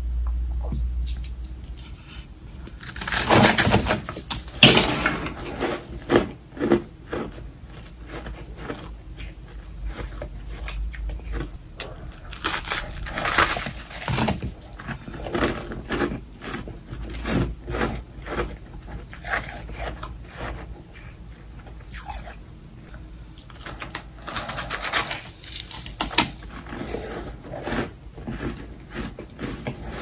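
A person biting into and chewing powdery humidifier freezer frost close to the microphone: three longer crunching bites about ten seconds apart, with quick, crisp chewing crunches between them.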